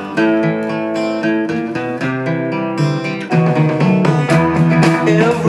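Recorded guitar music playing through a BRZHiFi class D amplifier and speakers. It opens with plucked and strummed acoustic guitar, and about three seconds in it grows louder and fuller as more instruments come in.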